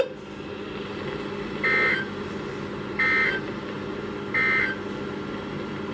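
Emergency Alert System end-of-message data signal over the broadcast: three short bursts of rapid two-tone digital warbling, each about a third of a second and roughly 1.3 seconds apart, over steady radio hiss and hum. The bursts mark the end of the alert message.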